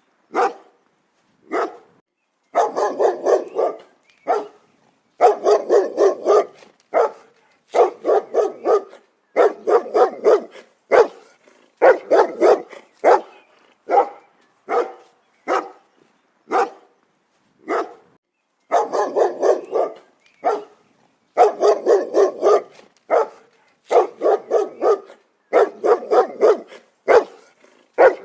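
A dog barking loudly again and again, in single barks and quick runs of three to six, with short silent gaps between them.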